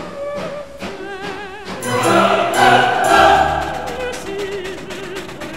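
Background music with voices singing with vibrato, choir-like, swelling to a loud full chord about two seconds in before easing back.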